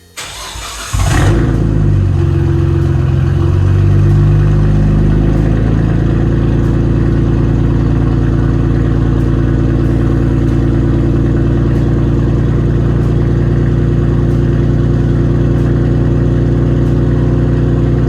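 Nissan Skyline R32 GT-R's RB26DETT straight-six, fitted with a single Borg Warner turbo and a titanium exhaust, starting up. It catches about a second in, runs at a fast idle that settles over the next few seconds, then idles steadily.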